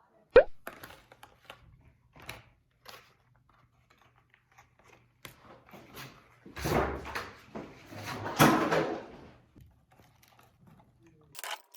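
Handling noises at close range: a sharp knock just after the start, scattered light clicks and taps, then two longer rustling, scraping sweeps, the second the loudest, over a faint low hum.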